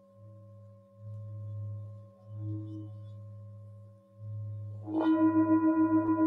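Tibetan singing bowls: a deep hum from a large bowl swells and fades several times over the lingering tones of earlier strikes. About five seconds in, a bowl is struck and rings out loudly with several overtones and a quick pulsing waver.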